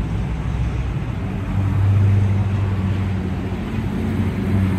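Engines of cars and a pickup truck driving slowly past at low speed. A deep, steady engine note comes up about a second and a half in and gets louder.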